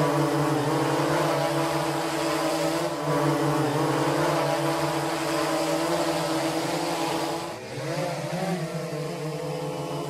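Quadcopter drone propellers buzzing at a steady pitch, dipping briefly about three-quarters of the way through and then rising again.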